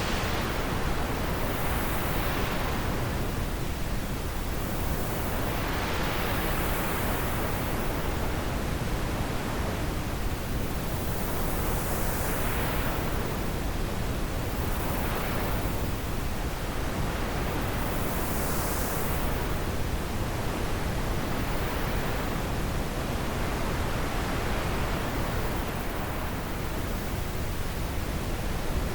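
Steady wind noise, swelling and easing in gusts every few seconds.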